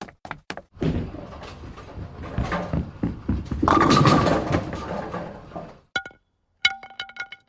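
A string of separate sound effects. A quick run of knocks ends just after the start. Then comes about five seconds of dense, noisy clattering that swells around four seconds in. Near the end there are a few short, ringing plucked notes.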